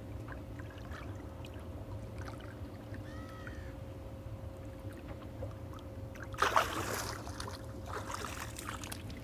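Water splashing as a released striped bass kicks free of the hand and swims off beside the boat, in two bursts in the second half, over a steady low hum.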